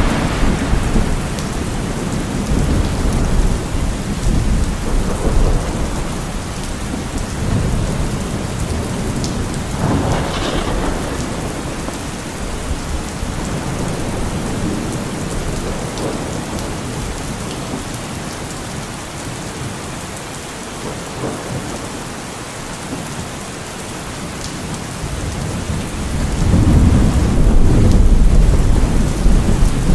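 Steady rain falling through a thunderstorm, with rolling thunder: a rumble dying away at the start, a smaller one near the middle, and a loud long rumble in the last few seconds.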